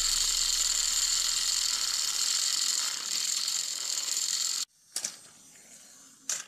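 Small electric motors and plastic gearboxes of two battery-powered toy trains whirring hard as the engines push head-to-head against each other, stalled under load. The whir cuts off suddenly about four and a half seconds in, leaving a faint whir and one short click near the end.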